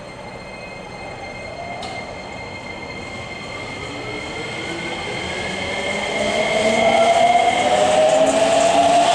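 Nagoya Municipal Subway N3000-series electric train pulling out of an underground station. Its motor whine climbs steadily in pitch and grows louder as it gathers speed, over the rumble of the wheels on the rails.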